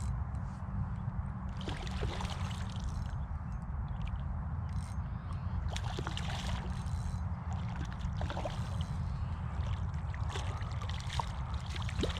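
Water sloshing and light splashing over a steady low rumble, as a hooked trout is fought on the line, with scattered small clicks.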